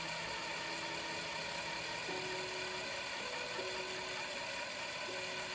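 Small electric drill with a 9/64 bit running steadily as it drills out the rivet on the base of a die-cast Hot Wheels car, its pitch shifting a few times.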